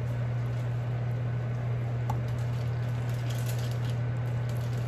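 A steady low hum over the bubbling of a pot of boiling pasta water, as a ceramic mug scoops the water and pours it into a pan of cream sauce, with faint splashes and ticks in the second half.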